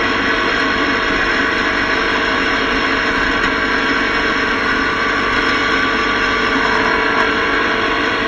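Steady wind rush and engine noise from a motorcycle cruising at highway speed, picked up by an action camera mounted on the bike, with no change in pace throughout.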